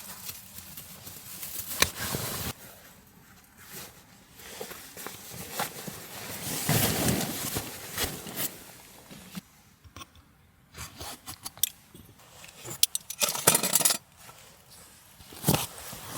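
Small objects being handled: scattered scrapes and rustles, including a longer scrape a little before the middle, then a quick run of sharp clicks and taps near the end.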